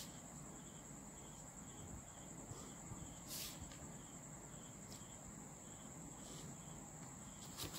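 Quiet room with a few soft clicks and scrapes as a plastic ruler and pen are moved on paper. Underneath is a steady high whine and a faint chirp repeating about twice a second.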